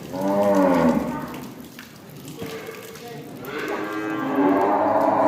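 Cow mooing twice: a short call that falls in pitch in the first second, then a longer call starting past the middle.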